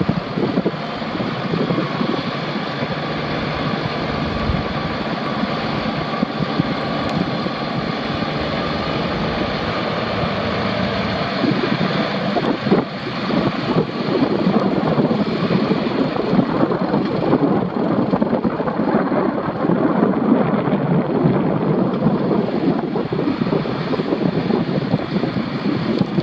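Fendt 933 Vario tractor's six-cylinder Deutz diesel running steadily, with wind buffeting the microphone; the sound grows rougher and a little louder about halfway through.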